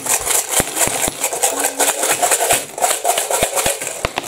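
Coins, mostly Indonesian 1000-rupiah coins, rattling and clinking as they are shaken out of a coin bank and drop onto a pile of coins on a table: a dense run of irregular sharp clinks.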